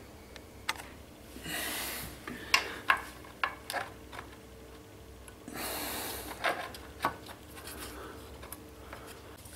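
Handling noise from the mitre saw and a steel set square: two spells of rubbing and a scattering of light clicks and taps as the square is held against the tilted blade.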